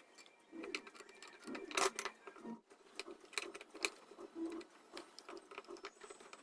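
Faint, irregular metal clicks and small knocks as the two screws of a sewing machine's needle plate are fitted and tightened with a screwdriver.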